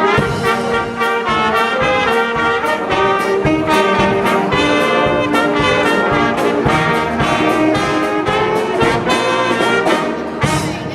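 Entertainment orchestra playing a brass-led tune with trumpets and trombones over a steady drum beat, ending on a loud final hit near the end.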